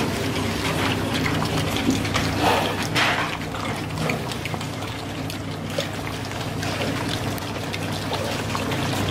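Piglets eating dry prestarter pellets from a plastic pan feeder, rooting and chewing in the feed: a steady rustling with many small clicks, over a steady low hum.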